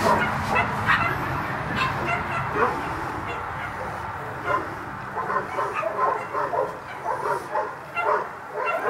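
A dog whining and yipping in short, irregular calls, coming thicker in the second half.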